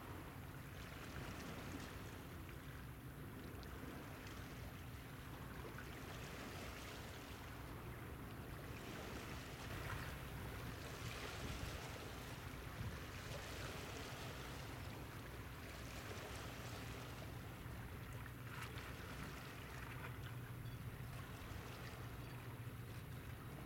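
Steady background noise: a constant low hum under a hiss that swells and fades every few seconds.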